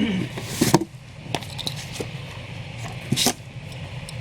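Comic books being handled and sorted out of a shipping box: a few short rustles and slaps of paper, the loudest near the start and about three seconds in, over a steady low hum.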